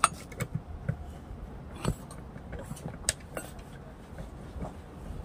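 Scattered sharp clicks and light metallic clinks, a handful in all, over a low steady hum.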